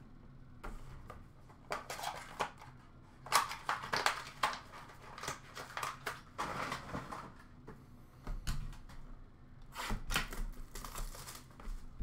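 Trading-card packaging being handled and opened: irregular crinkling, tearing and rustling of wrapper and cardboard, with scattered light clicks and knocks.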